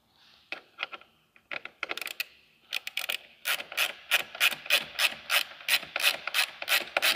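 Hand ratcheting driver clicking as it snugs down a bolt on a Jeep Wrangler JL Sunrider top bracket: a few scattered clicks at first, then steady clicking about three times a second from about three seconds in.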